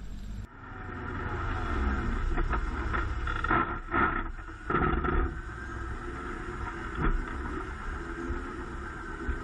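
Vintage Dodge Power Wagon truck driving off-road, its engine and drivetrain running steadily with a constant high whine. Several knocks and rattles come about three to five seconds in and again around seven seconds.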